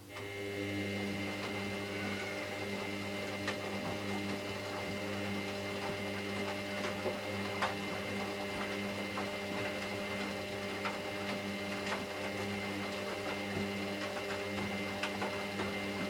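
Hoover washing machine's drum motor starting up and then running steadily with a constant whine, with light clicks and knocks from the drum and load throughout.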